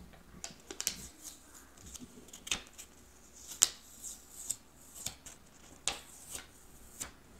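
Clear plastic carrier sheet being peeled slowly off cooled flocked heat-transfer vinyl on a plush toy, giving faint, irregular crinkles and crackles, the sharpest about three and a half seconds in.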